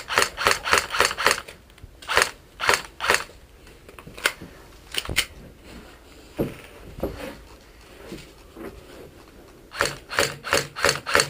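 Airsoft gun firing in quick strings of sharp shots, about five a second. There is a string of about six at the start, three more about two seconds in, a few scattered shots around four to five seconds, and another string of about seven near the end.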